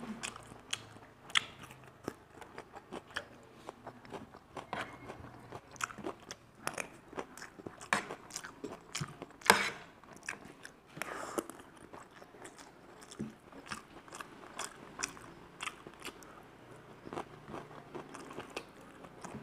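Close-up eating sounds: chewing and biting of chicken fried rice and momos, with many short clicks and taps of a fork on the ceramic plate. The sharpest click comes about nine and a half seconds in.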